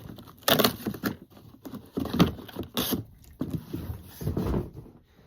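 Cardboard door of a wine advent calendar being torn open and the box handled: a run of irregular tearing and rustling noises.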